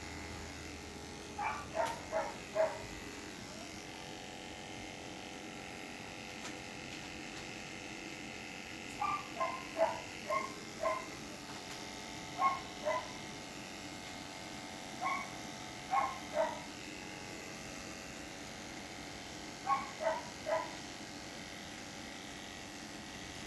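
A dog barks in quick clusters of three or four short barks, five times. Under it runs the steady hum of electric animal clippers shaving a dog's belly for surgery prep.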